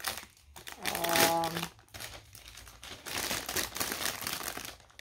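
Clear plastic plant sleeve crinkling and rustling as it is pulled up and off a potted plant, with a brief vocal sound about a second in.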